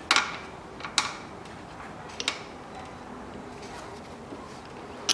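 Hand tools clinking against the engine mount and its bracket under the hood: four short, sharp clinks, the first three roughly a second apart and the last near the end.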